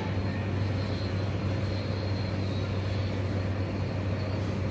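A steady low droning hum with an even hiss behind it, unchanging throughout.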